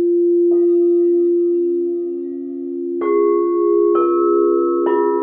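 Crystal alchemy singing bowls ringing in several sustained, overlapping tones. A bowl is struck about half a second in, and three more strikes come in quick succession in the second half, each adding a higher note.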